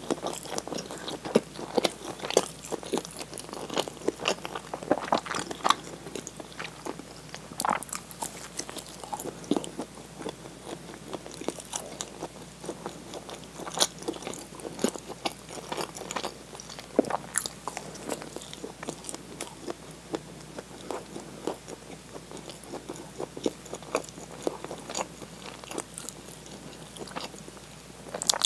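Close-miked biting and chewing of a flatbread-wrapped snack, with many short, crisp crunches at an irregular pace.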